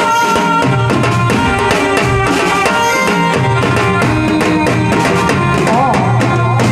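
Loud, amplified Navaratri folk music with a steady tabla and drum beat under sustained melodic lines; a wavering melody line comes in near the end.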